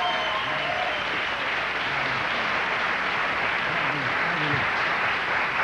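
Studio audience applauding steadily, with a man's voice faintly underneath now and then.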